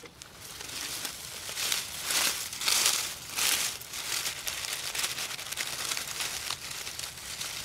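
Dry fallen leaves and grass rustling and crinkling as gloved hands part the leaf litter around a morel mushroom. It comes in several louder bursts in the first half, then goes on more softly.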